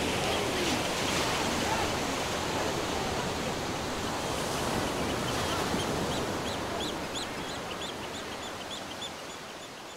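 Steady rush of sea surf, with a small bird chirping over and over in the second half. The whole sound fades away over the last few seconds.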